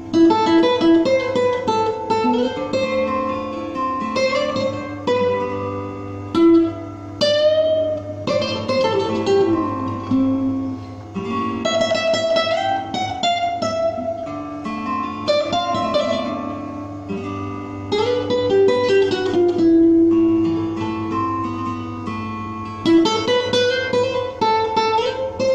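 Nylon-string classical guitar played fingerstyle, a melody picked over plucked chords in a steady flow of notes.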